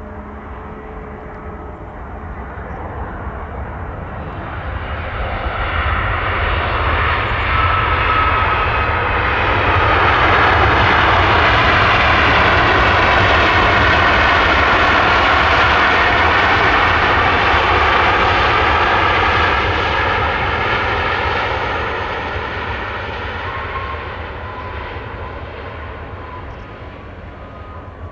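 Boeing 737 MAX 8 jet airliner passing by on its landing approach: its engine noise swells, is loudest around the middle, then fades, with the whine sliding down in pitch as it goes past.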